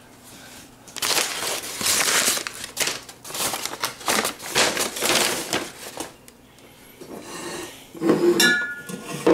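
Paper rustling and crinkling in a run of irregular bursts as it is handled and crumpled, then a brief ringing clink near the end.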